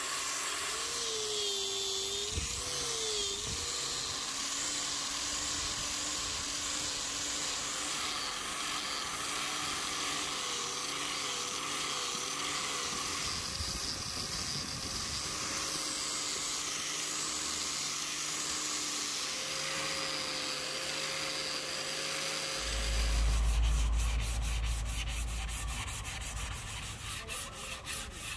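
Steady scraping of a hand tool abrading a rosewood axe handle. Near the end it gets louder and turns into a fast run of short strokes.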